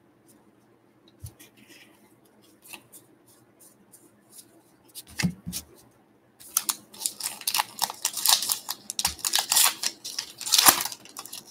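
Light clicks of trading cards being handled, with one soft knock about five seconds in. Then the loud crinkling and tearing of a baseball-card pack wrapper being ripped open.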